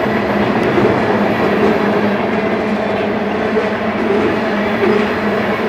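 Freight train tank cars rolling past, a steady noise of steel wheels on the rails with a low hum beneath it.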